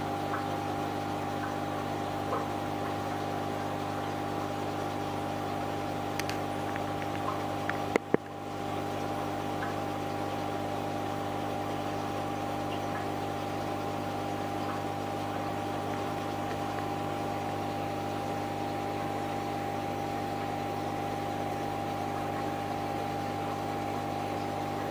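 Aquarium equipment running with a steady electrical hum and a constant high whine. Two sharp clicks come about eight seconds in.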